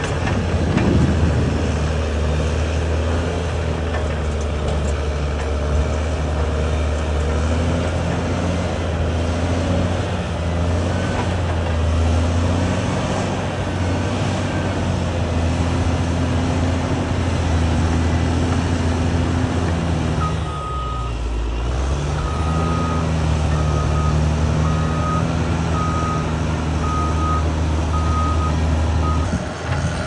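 Caterpillar D6R2 crawler bulldozer's diesel engine running steadily as it pushes dirt. About two-thirds of the way in, a reversing alarm starts beeping about once a second.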